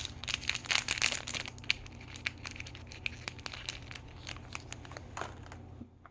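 Plastic packaging of a LOL Surprise miniverse doll crinkling and crackling as it is opened by hand. The crackling is dense for the first second or so, thins out to scattered crackles and stops near the end.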